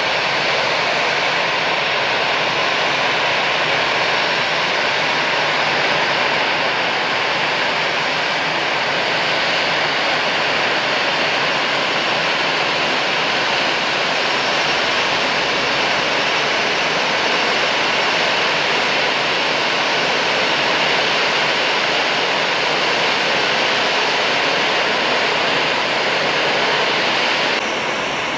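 Jet engines of an Airbus A320-family airliner running at low taxi power: a steady hiss and whine with faint high tones held throughout, the sound shifting slightly just before the end.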